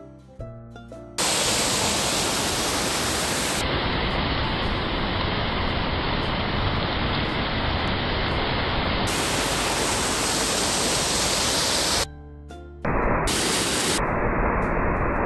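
A waterfall cascading over rocks into a pool: a loud, steady rush of falling water that cuts in suddenly about a second in. Background music is heard before it and briefly breaks in again near the end.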